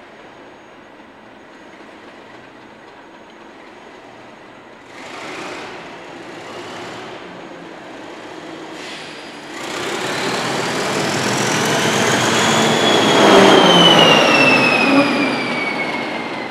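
DRS Class 37 diesel locomotive, with its English Electric V12 engine, drawing a passenger train into the platform. The rumble of engine and wheels builds from about ten seconds in and is loudest near the end. A high squeal rises and then falls in pitch as the locomotive passes. A couple of short rushes of noise come earlier, about five and seven seconds in.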